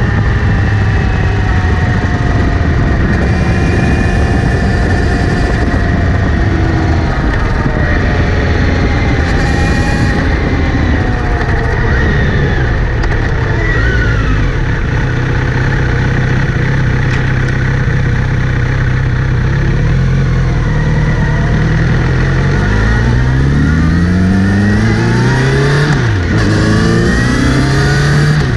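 Kawasaki Z900RS inline-four motorcycle running under way. Its engine note rises several times near the end as it accelerates, and a steady higher whirr sits over it. The owner hears this whirring in gear and on acceleration and places it near the front sprocket after cleaning and relubing the chain.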